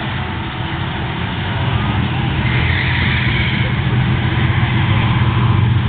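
Engine of a vehicle running down a drag strip, a steady low drone that grows louder about two seconds in.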